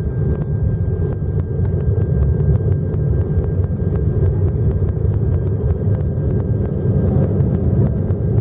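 Cabin sound of an Airbus A319-132 on its takeoff roll, its IAE V2500 turbofans at takeoff power: a loud, steady low rumble with a thin steady whine above it, and frequent small clicks and rattles.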